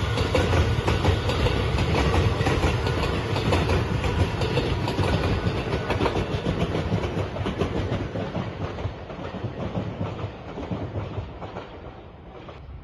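Electric passenger train running past over the rails, wheels clattering in a fast rhythm over the rail joints. It fades steadily from about two-thirds of the way in as the train moves away.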